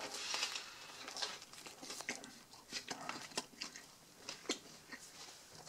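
Faint eating sounds: chewing and crinkly handling of a bread-roll sandwich, with a few soft clicks scattered through.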